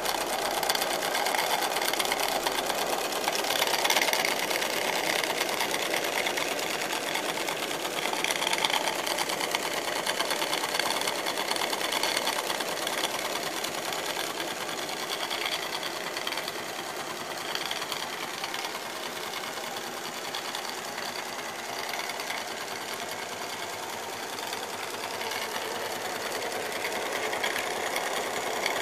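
Hornby 3½-inch gauge live steam Stephenson's Rocket running fast with its driving wheels spinning free on a stand: a rapid, steady chatter of steam exhaust beats and clattering valve gear.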